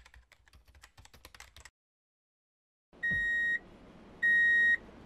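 Rapid keyboard-typing clicks for about a second and a half, a typing sound effect for the title letters appearing on screen. After a short silence, loud, steady electronic beeps begin, each about half a second long and repeating about once a second.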